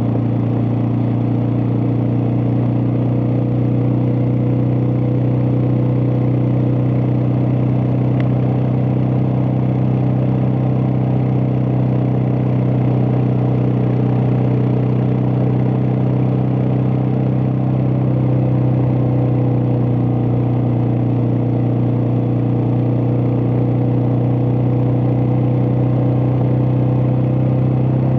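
Suzuki DR650 single-cylinder motorcycle engine running at a steady pitch while riding at constant speed.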